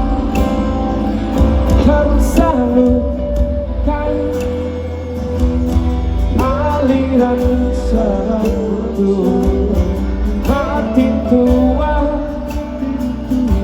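Live band music: a singing voice gliding over guitar and a steady, heavy bass.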